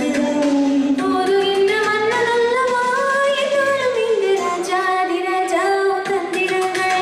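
A woman singing an Indian film song into a microphone over a karaoke backing track. She holds long notes that glide from one pitch to the next without a break.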